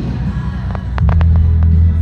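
Fireworks going off, with deep rumbling booms and sharp cracks and pops, over music played through loudspeakers.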